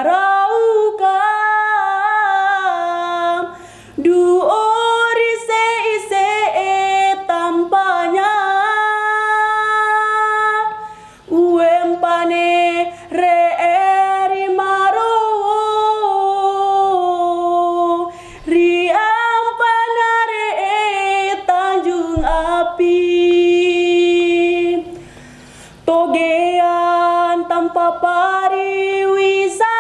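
A young woman singing solo and unaccompanied, in long phrases with held notes and short pauses for breath.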